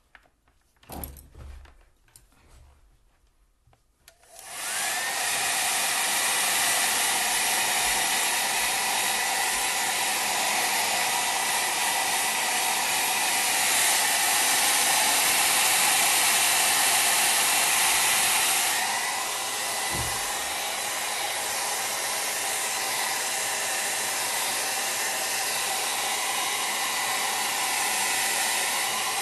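A handheld hair dryer switches on about four seconds in, after a few faint knocks, and blows steadily with a thin whine to dry a watercolour sheet. It gets a little quieter about two-thirds of the way through.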